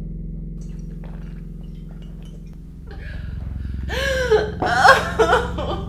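A woman crying: quiet sobs, then loud wailing cries that swell up about four seconds in, over a steady low hum.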